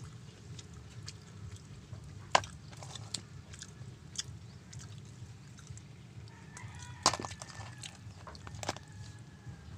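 A cooked crab's shell being broken apart by hand and eaten: a few sharp cracks, the loudest about two seconds in and again about seven seconds in, with chewing and picking sounds between, over a steady low hum.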